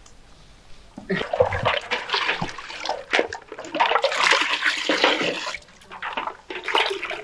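Phalsa juice poured in a heavy stream from a jug into a large steel tub, splashing and churning, followed near the end by shorter splashes as a plastic jug is dipped into the juice.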